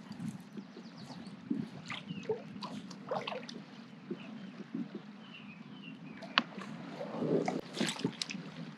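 Water sloshing and gurgling against a small boat, with scattered knocks and clicks from handling, over a steady low hum. A louder stretch of splashing and knocking comes about seven seconds in.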